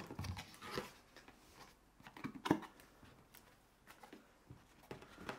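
Scattered rustles and light taps of packaging being handled during an unboxing, with one louder tap about two and a half seconds in.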